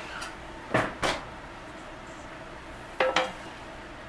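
Metal cookware knocking on a glass-top stove: two sharp knocks about a second in, then a double clank with a brief ring near three seconds as a black griddle pan is set down on the burner.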